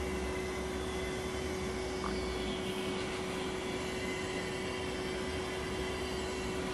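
Large model beam engine fitted with new valves, running steadily: a continuous hiss with a constant hum underneath and no distinct beats, the engine now turning over more smoothly.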